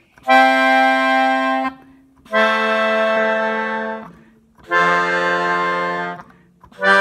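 Melodica blown through its air tube, playing held chords: a single low note in the left hand under a chord in the right. Three chords of about a second and a half each, with short breaks between them, and a fourth starting at the very end.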